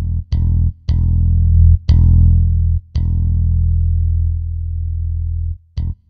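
Korg M50 synthesizer playing its 'Finger Bass 1' patch, a sampled fingered electric bass: a short line of plucked low notes, then one note about three seconds in held for over two seconds as it slowly fades, and a brief note near the end.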